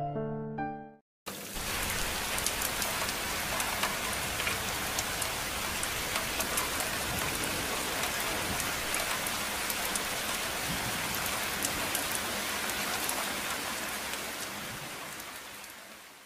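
Steady rain falling, with scattered drops ticking, starting about a second in just after a piano melody ends and fading out near the end.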